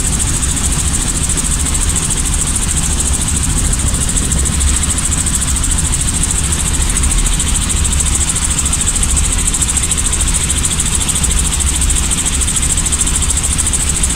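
Robinson piston helicopter running steadily, a loud unbroken drone with a deep low rumble under a high hiss.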